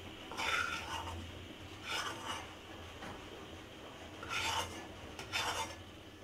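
Four short rasping scrapes of a steel bowl being handled and turned in the hand, over a faint steady hum.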